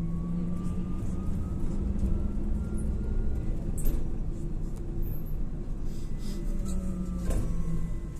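LAZ E301D1 trolleybus in motion, heard from inside: the electric traction drive's whine rises in pitch as it accelerates during the first few seconds, then falls again as it slows near the end, over a steady rumble and hum. Two short knocks come about four and seven seconds in.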